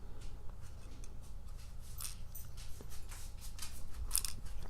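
Small metal lock parts being handled: faint clicks and light scrapes as pins and springs are worked out of a disassembled padlock, with brighter clicks about two seconds in and again near the end.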